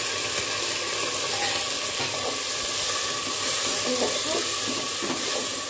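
Marinated chicken pieces sizzling in hot oil with fried onions in an aluminium pot as they are tipped in and stirred with a metal skimmer: a steady frying hiss.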